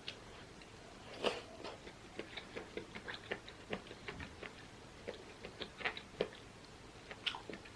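Close-miked eating sounds: irregular small clicks and smacks of chewing and mouth noises, a few of them louder.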